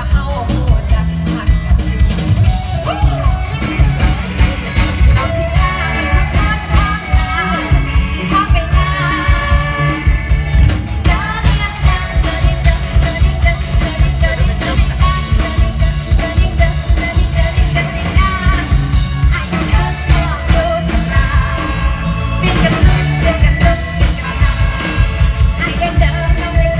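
Loud live band music played through a stage PA: a woman singing a Thai Isan pop song over a driving drum and bass beat.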